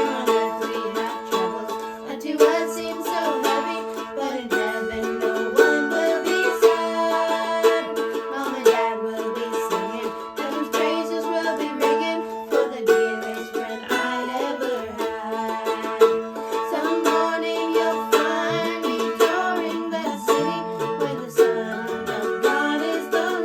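Mandolin picking a tune in steady runs of short plucked notes, over long held tones.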